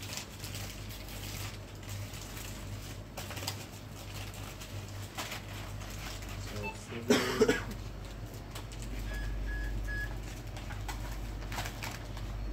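Packaged goods being handled on shop shelves: scattered short rustles and knocks over a steady low hum, with a louder brief pitched sound about seven seconds in and three short high beeps a little later.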